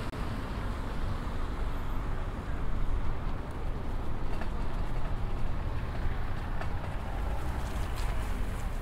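Street noise heard from a moving bicycle: a steady low rumble of traffic and wind, with a few faint clicks near the end.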